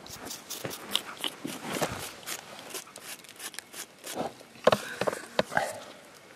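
Gravel crunching and rattling on a sieve screen as it is worked through to grade it fine for gold: a run of irregular clicks and crunches, with a few louder knocks a little after the middle.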